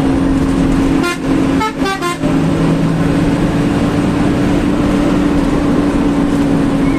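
Intercity bus under way at speed, a steady engine and road drone with a held hum, broken about a second in by a quick run of three or four short horn toots.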